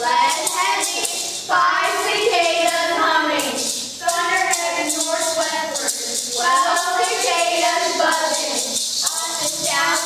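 Children's voices reciting a poem as a sing-song chant, in drawn-out phrases of a second or two each with short breaks between them.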